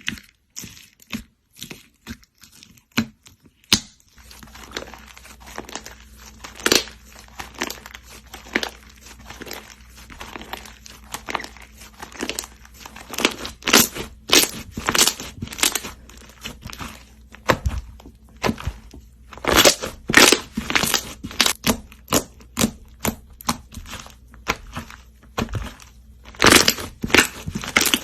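Slime being squeezed and pressed by hand, giving irregular sharp crackling pops, thickest in a few loud clusters, over a faint steady low hum that starts about four seconds in.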